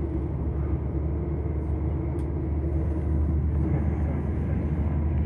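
Steady low rumble inside the saloon of a Class 172/0 diesel multiple unit on the move, a little louder about halfway through, while a freight train passes close alongside.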